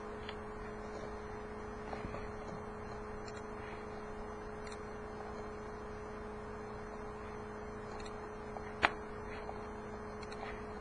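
Steady electrical hum with a faint hiss, holding two steady low tones, and one sharp click about nine seconds in.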